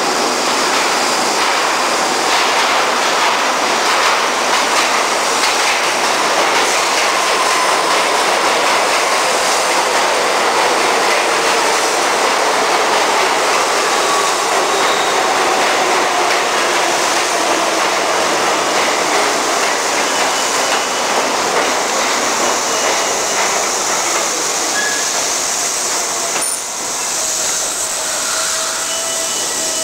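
R44 New York City subway train pulling into an underground station: a loud, steady rumble of steel wheels on the rails with faint wheel squeals, the train slowing near the end.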